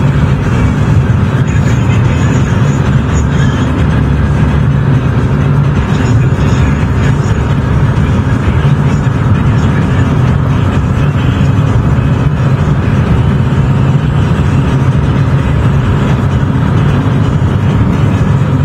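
Car driving on the road: a steady, loud low drone of engine and road noise that does not change.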